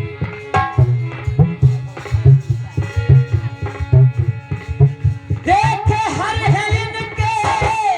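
Folk devotional music: a steady hand-drum beat under a held instrumental melody. About five and a half seconds in, a loud, wavering sung note comes in and is held until near the end.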